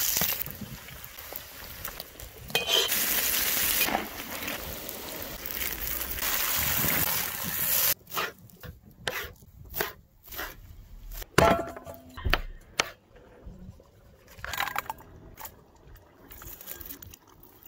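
A kazan over a campfire: a steady hiss for about the first eight seconds, which then stops. A string of separate clinks, knocks and scrapes of a metal utensil against the pot follows, the loudest a little past the middle.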